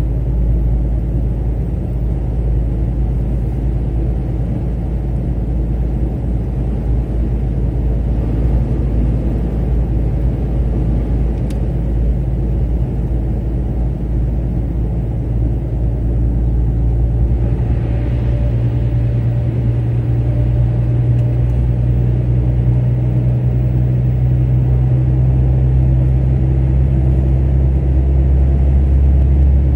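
Car driving at motorway speed: a steady low rumble of engine and tyre road noise. It grows a little louder and fuller in the last third, as the car runs into a road tunnel.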